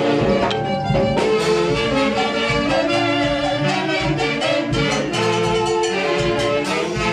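Latin dance music with brass horns and a steady beat, playing loudly and without a break.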